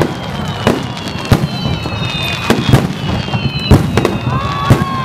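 Fireworks display: aerial shells bursting one after another, about two sharp bangs a second, with thin high whistles gliding slightly down in pitch between them.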